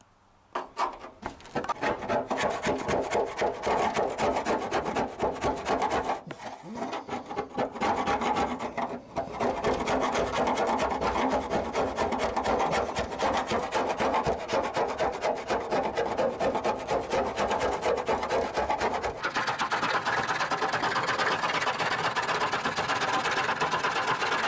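A flat-bladed scraper rasping old coating and rust off the inner steel panel of a car door, in quick continuous strokes of blade on metal, with short breaks about six and nine seconds in.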